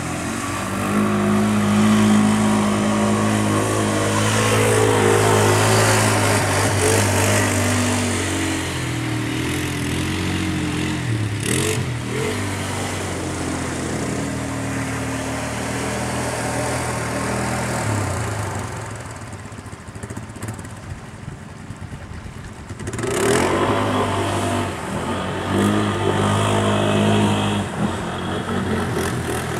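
ATV engine running and revving hard under load through mud and water, easing off about two-thirds through and then revving up again.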